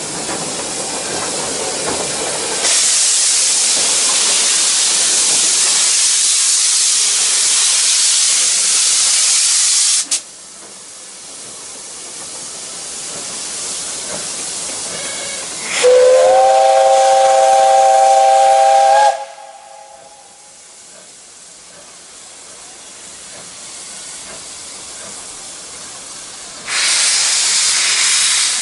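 JNR Class 8620 steam locomotive No. 8630 pulling away: a loud hiss of escaping steam for about seven seconds that cuts off sharply, then one steam whistle blast of about three seconds, and another loud hiss of steam near the end.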